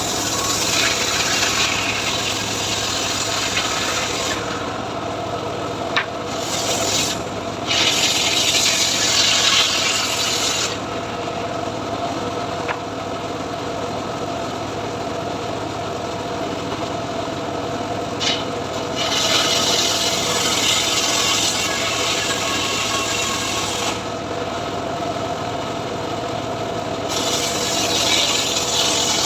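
Homemade sawmill's blade cutting a mahogany log: a steady machine hum under a rasping sawing noise that comes and goes in stretches of a few seconds as the blade works through the wood.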